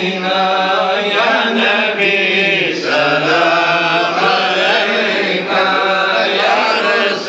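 A man chanting devotional verses into a handheld microphone, in a strong voice with wavering, ornamented pitch and short breaks between phrases.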